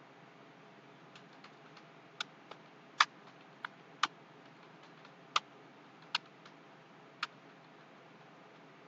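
Computer keyboard keystrokes, slow and irregular: about a dozen separate key clicks, some much louder than others, stopping about a second and a half before the end.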